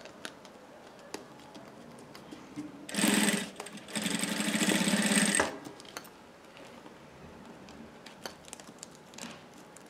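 Industrial sewing machine stitching in two short runs: a brief burst about three seconds in, then a run of about a second and a half, with a fast even rhythm of stitches. Between the runs there are only faint handling clicks.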